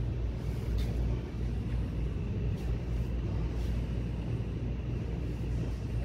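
A steady low rumble, with a few faint clicks.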